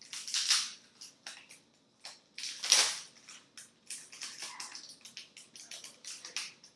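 Rustling and crinkling as Garbage Pail Kids trading cards and their packaging are handled, in short irregular bursts, loudest about half a second in and again just under three seconds in.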